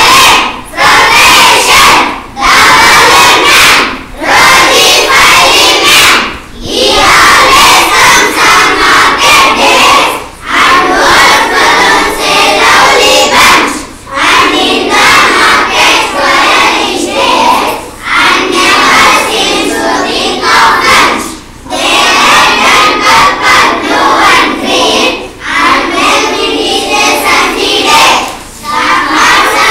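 A class of children reading aloud from their books all at once, many loud voices together in phrases broken by short pauses every few seconds.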